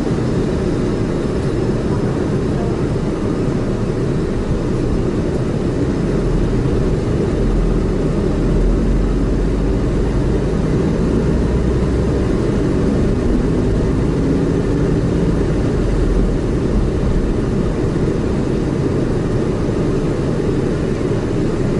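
Car engine and road noise heard inside the cabin while driving: a steady low rumble, with the deep engine drone swelling between about six and twelve seconds in.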